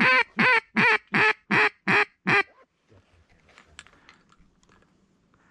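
Duck call blown in a hen-mallard quacking cadence: a steady run of loud, evenly spaced quacks, about two and a half a second, that stops about two and a half seconds in.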